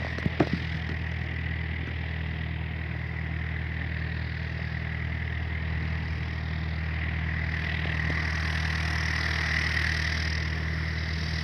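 Light aircraft's propeller engine running steadily as the plane taxis, growing a little louder over the last few seconds. A few sharp clicks in the first half second.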